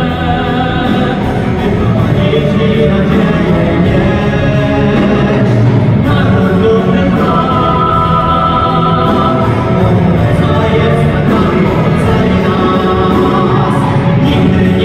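Choir and orchestra performing live, voices singing over strings, with long held sung notes from about six seconds in.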